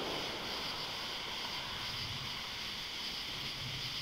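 Steady outdoor background hiss, strongest high up, over a faint low rumble, with no distinct thunderclap or other event.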